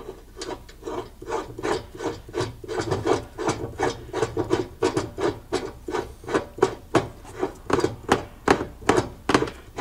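Aftermarket ZL1 tow hook being screwed into its bumper mount by hand: metal rubbing and rasping in even strokes, about three a second.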